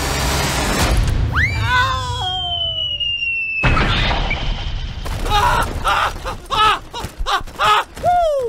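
Cartoon sound effects dubbed over a toy truck crash: falling whistle tones, then a sudden boom-like crash about three and a half seconds in, followed by a run of short, wavering cries.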